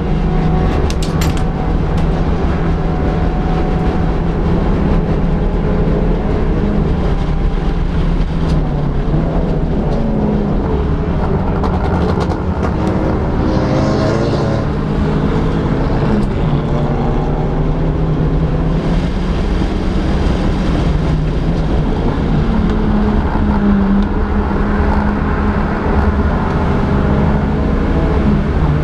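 Touring race car's engine heard on board at racing speed, its note rising and falling as it revs up through the gears and drops under braking.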